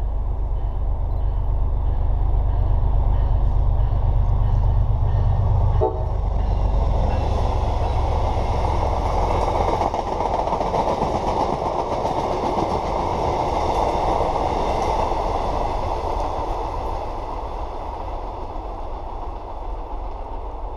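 An MBTA commuter train hauled by an MPI HSP46 diesel locomotive passes at speed. A deep diesel rumble drops away suddenly about six seconds in, and then comes the rush of the coaches' wheels on the rails, loudest in the middle and fading as the train pulls away.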